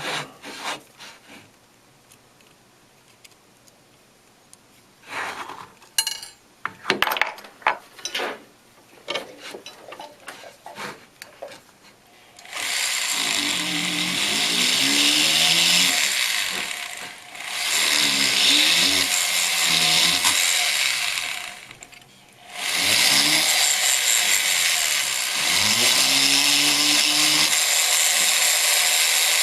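A few small clicks and taps, then a jeweler's rotary handpiece with a bur, cutting a seat into the ring's prongs for the stone. It starts about twelve seconds in and runs in three stretches with two short breaks, its pitch rising and falling as the speed changes.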